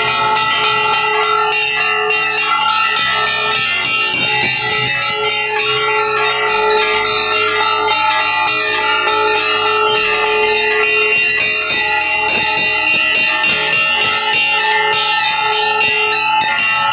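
Hanging temple bells rung over and over by devotees, many strikes overlapping into a continuous loud ringing.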